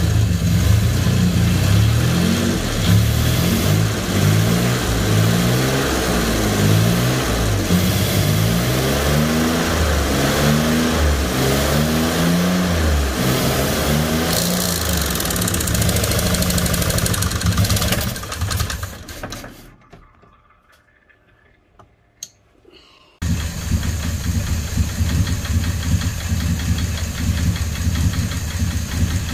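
Jaguar Mk2's 3.8-litre XK straight-six engine running, its pitch rising and falling unevenly. About two-thirds of the way through the sound dies away to near silence for a few seconds, then the engine is heard running again, more steadily.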